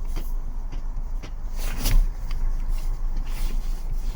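Knocking from a 2024 Jaecoo J7's steering rack: scattered short knocks over the low rumble of the car, with one louder knock about two seconds in. This is the characteristic knock that was diagnosed as the steering rack; it shows up only at certain positions.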